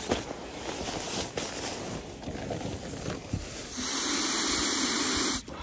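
Nylon fabric and stuff sacks rustling and crinkling as they are handled. About two thirds of the way in, a steady breathy hiss begins as air is blown by mouth into the valve of an inflatable camping pad. It breaks off near the end for a breath.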